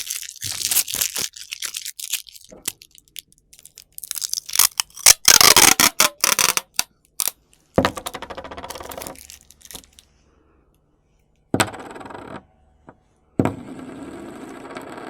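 Scotch tape being pulled off the roll: crackling at first, a loud ripping pull about four seconds in, then three shorter pulls, the last two with a thin high squeal.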